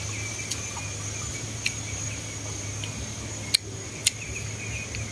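Insects trilling steadily in a continuous high buzz over a low steady hum, with four short sharp clicks, the loudest two about half a second apart some three and a half seconds in.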